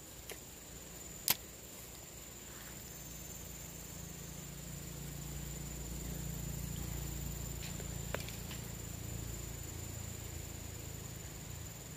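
Faint steady high-pitched insect drone over a low rumble that swells and fades in the middle, with one sharp click about a second in and a few fainter ticks.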